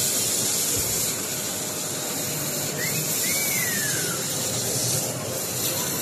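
Eluxgo EC25 stick vacuum cleaner running on a long extension wand: a steady hiss of suction air with a high whine, as it is pushed along the floor into a corner.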